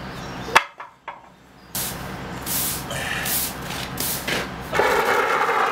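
Push broom sweeping sawdust on concrete in repeated scratchy strokes, after a sharp knock about half a second in; the strokes grow louder near the end.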